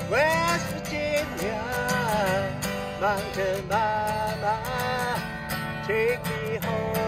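Acoustic guitar strummed steadily under a sung melody with long held notes, in a slow country-folk style.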